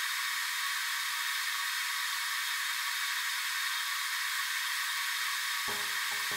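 Steady hiss of a butane soldering iron burning as its hot tip is drawn along a cracked plastic strobe lens to weld it.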